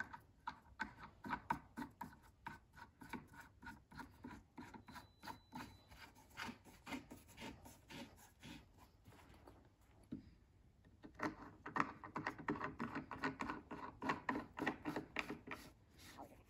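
Hands twisting a screw-in sofa leg into an upholstered sofabed armrest panel: a quick run of short scraping and rubbing strokes, breaking off for about a second just past the middle, then resuming busier.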